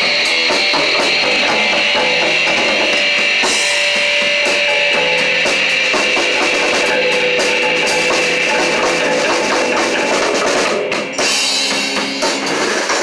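Rock band playing loudly on drum kit and electric guitar, with a short dip in level about eleven seconds in.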